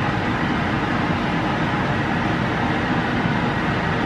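Steady fan-like rushing noise, even and unchanging, with no separate shaker taps standing out.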